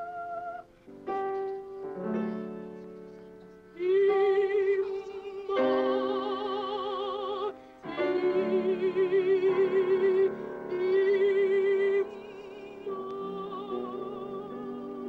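A boy singing a slow song in a high voice with strong vibrato, accompanying himself on the piano. A few piano chords die away before the voice comes in about four seconds in on long, wavering held notes over sustained chords.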